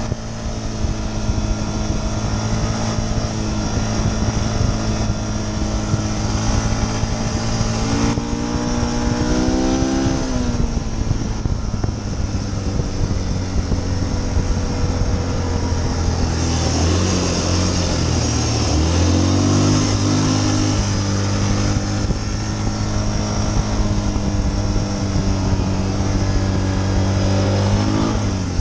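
Yamaha Bruin 350 ATV's single-cylinder four-stroke engine running under way, over a steady hiss. Its pitch rises and falls with the throttle about nine seconds in, again between about seventeen and twenty seconds in, and near the end.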